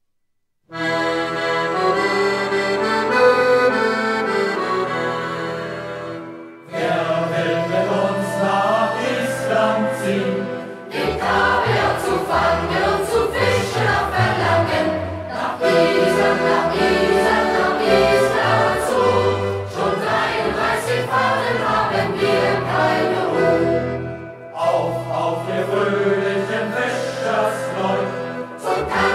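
Accordion plays a short introduction of held chords, starting after a brief silence. From about seven seconds in, a youth choir sings along with it.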